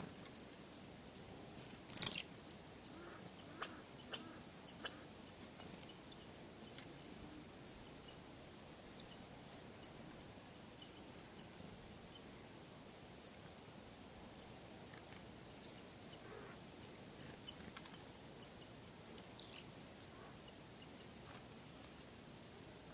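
Black-capped chickadees giving short, high, thin call notes, about two a second in irregular runs, with a louder sharp note about two seconds in.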